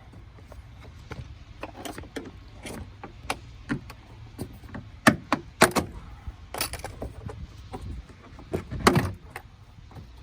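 Plastic retaining clips of a 2012+ Toyota Camry's interior door trim panel popping loose as the panel is pried off the door: a series of sharp clicks and snaps, the loudest about five to nine seconds in, over a low steady hum.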